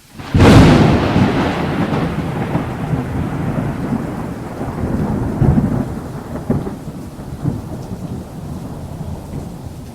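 Thunderclap: a sudden loud crack about half a second in, then a long rolling rumble that slowly fades, swelling a few more times along the way.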